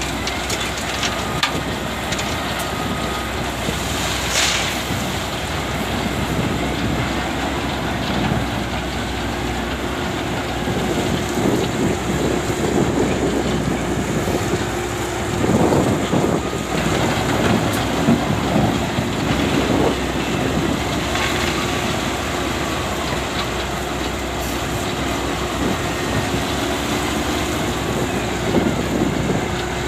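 Diesel engine and hydraulics of an SDLG loading machine working under load while it fills a dump truck, a continuous rough machine noise with a steady hum. Several louder rough rumbles come midway and again near the end, as material is scooped and dumped.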